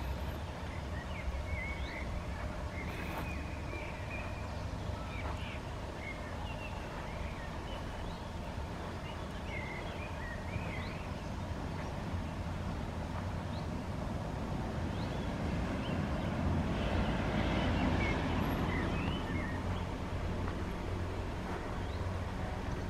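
Small birds chirping in short, scattered calls over a steady low rumble, with a broad rushing swell of noise about two-thirds of the way through.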